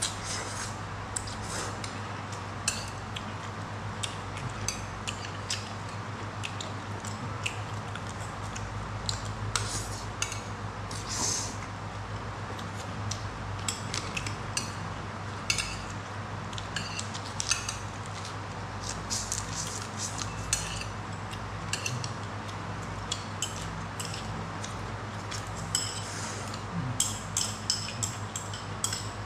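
Eating at the table: chopsticks clicking and scraping against a plate and bowl in many small, irregular clicks, with the chewing of noodles and lettuce.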